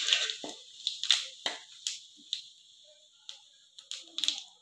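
Cumin seeds and bay leaves sizzling and crackling in hot oil in a kadhai, stirred with a ladle. The sharp pops come every half second or so at first, then grow sparser.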